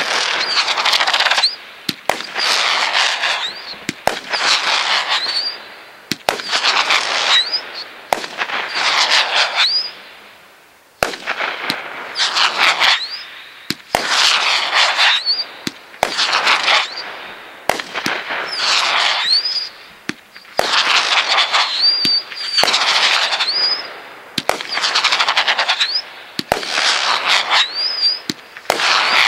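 Oktoberfest 500-gram consumer fireworks cake firing shot after shot, roughly one every two seconds, with a brief lull about ten seconds in. Each shot is a sharp launch report followed by a loud shrill whistle that rises in pitch over about a second and a half.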